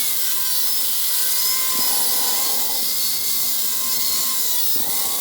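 Power cutting tool running steadily through the steel of a wootz blade preform, a loud high hiss with a thin whine that wavers slightly in pitch as it works the cut.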